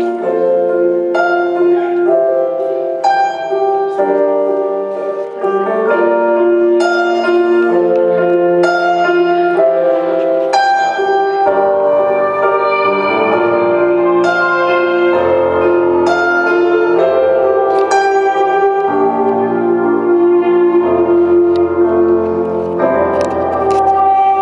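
Slow piano music. Single notes are struck about once a second over held chords, and deeper bass notes join about halfway through.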